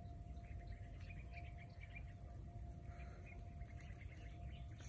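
Faint bird chirping: two quick runs of short high notes, over a low outdoor rumble and a steady high-pitched whine.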